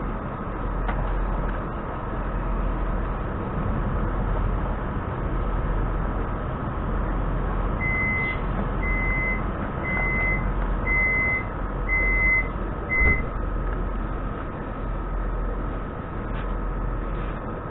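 Steady hum of a stopped electric commuter train, with a thin whine from its equipment. About eight seconds in, six short high beeps sound about once a second: the door-closing warning signal before departure.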